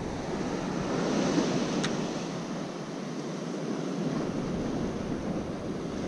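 Ocean surf washing against a rock ledge: a steady hiss of foaming whitewash.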